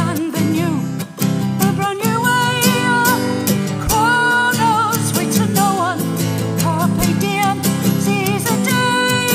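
A woman singing a slow song, holding long wavering notes, over a strummed acoustic guitar.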